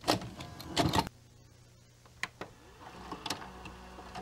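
Clothes rustling and handling noises, with a few sharp clicks and knocks, as someone puts on a flannel shirt over a thermal. The loudest rustling is in the first second. After that a steady low hum sits underneath the scattered clicks.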